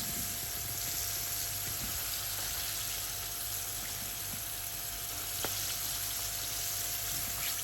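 Steady sizzling hiss of food frying on the stove, with a faint steady hum beneath it and a single light click about five and a half seconds in.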